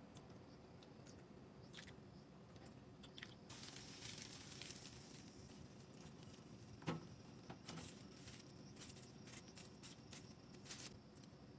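Faint, sparse kitchen handling sounds: small ticks and light rustles as chopsticks scoop natto out of a rice-straw wrapper into a glass dish, with one sharper click about seven seconds in.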